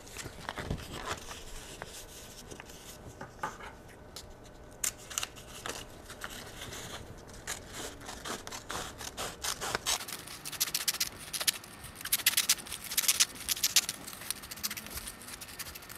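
Scissors snipping lengthwise along a paper strip, a run of short cuts with the paper rustling as it is handled. About two-thirds of the way in the snips come faster and louder.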